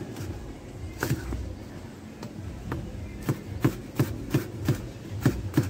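Chef's knife chopping a carrot on a cutting board: two separate knocks, then steady chopping at about three strokes a second from about halfway in.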